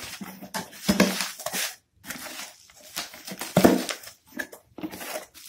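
A small cardboard box being opened by hand: flaps scraping and bending back, then plastic bubble wrap crinkling as it is handled, in uneven rustles with short pauses.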